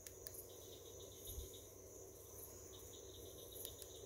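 Crickets chirping faintly in two trills of rapid, evenly spaced pulses, each about a second long. A few faint clicks come near the start and near the end.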